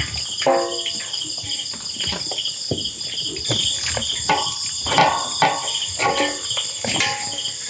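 Insects chirring steadily in a high, pulsing chorus, with scattered short knocks and clatter over it.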